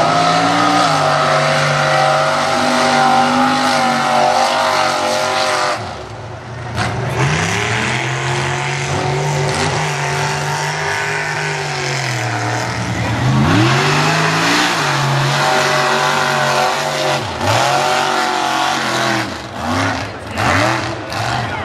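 Mega truck's engine revving hard as the truck churns through a mud pit, its pitch climbing and falling again and again. The revs drop sharply about six seconds in and dip again around thirteen seconds, and near the end come in a string of short, quick blips.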